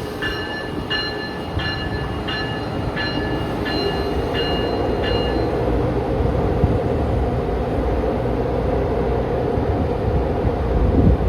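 Train bell ringing steadily, about one and a half strokes a second, then stopping about five seconds in, over the steady rumble of a train at the platform.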